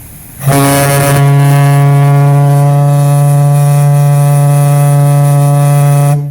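Leslie Tyfon 300 steam horn blowing on 150 psi live steam: one long, loud, low steady blast starting about half a second in. It opens with a hissing sputter and cuts off just before the end. It is fed through a half-inch line, smaller than the inch-and-a-half the horn needs, but still a good toot.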